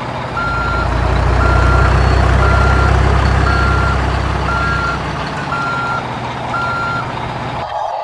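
Truck reversing alarm beeping about once a second, seven half-second beeps at one pitch, over a heavy engine's low rumble that fades away about five seconds in.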